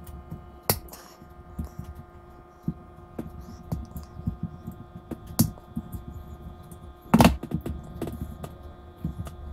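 Diagonal cutters working at the metal axles of a small diecast toy horse box: small metal clicks and scrapes, with two sharp snaps as the axles are cut, about a second in and, loudest, about seven seconds in. A steady hum runs underneath.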